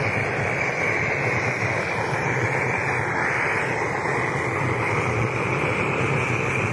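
Liquid-fuel blowlamp burning with a steady, even hiss, its flame singeing the hair off a moose lip.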